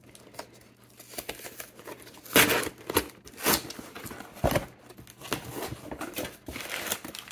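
A cardboard Priority Mail shipping box being torn open by hand: tape and cardboard ripping in several short tears with rustling between them, the loudest tear about two and a half seconds in.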